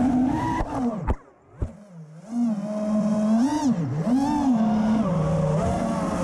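FPV racing quadcopter's motors and propellers whining, the pitch rising and falling with the throttle. About a second in, the throttle is cut and the sound drops almost to nothing for about a second, then it throttles back up.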